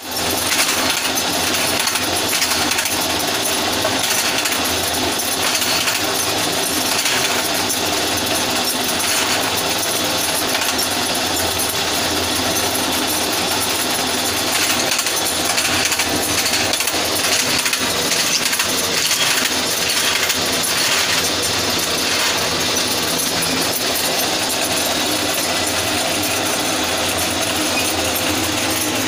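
Bamboo strip slicer machine running steadily as bamboo strips are fed through its rollers and slicing blades: a dense, constant clatter over a low hum.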